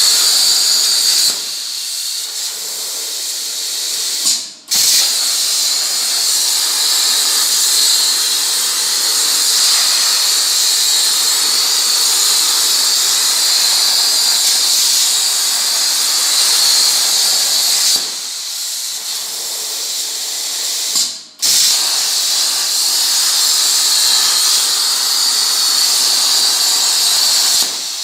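CNC plasma torch cutting sheet metal, a loud steady hiss of the plasma arc. Twice the hiss drops to a lower level for a few seconds, cuts out for an instant, then comes back at full strength.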